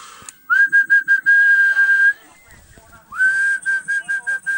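A person whistling a steady high note into an amateur radio transceiver's microphone, the usual way to drive an SSB transmitter for a power-output check. There are two whistles, about half a second in and about three seconds in. Each slides up into the note, breaks a few times, then holds.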